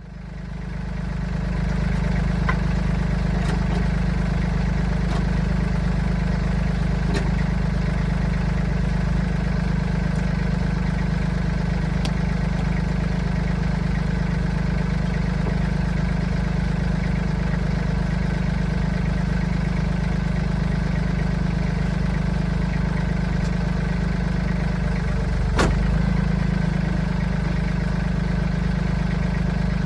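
An engine idling steadily, a loud low hum that starts abruptly and runs on, with a few light clicks over it and a brief change in the hum near the end.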